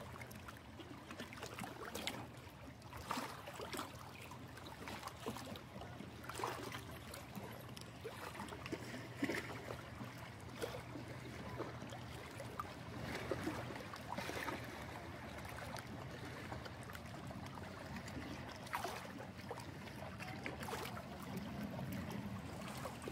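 Water lapping and splashing gently at the waterside in short, irregular slaps, over a low steady hum.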